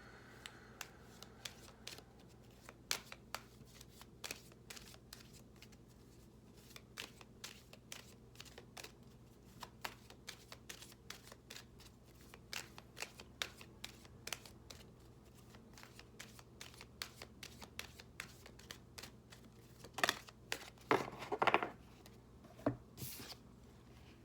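A deck of oracle cards, The 22 Archangels Oracle, being shuffled by hand. The cards make many short, quick slaps and flicks, with a denser, louder flurry about twenty seconds in.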